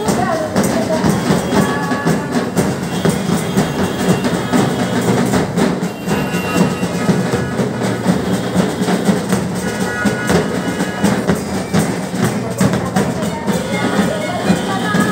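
Procession band music: drums and other percussion beating steadily and densely, with a melody line coming in at times.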